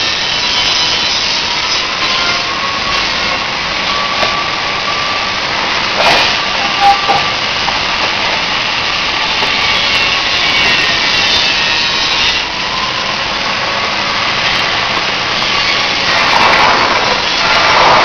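Peanut and bean roasting oven machine running with a steady mechanical whir, with a couple of short knocks about six to seven seconds in. The noise grows louder near the end as roasted nuts begin pouring out of the discharge chute.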